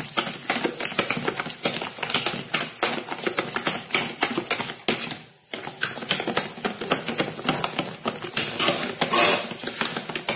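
Spoon stirring mashed banana and sugar in a bowl: fast, continuous clicking and scraping against the bowl's sides, with a brief pause about halfway.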